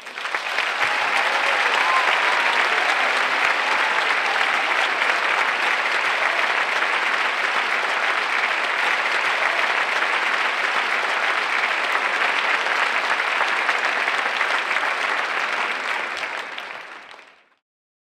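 Audience applauding, starting at once and holding steady, then fading out near the end.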